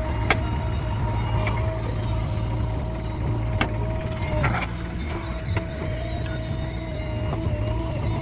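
JCB excavator's diesel engine running steadily, with a steady whine over the low rumble and scattered sharp clanks.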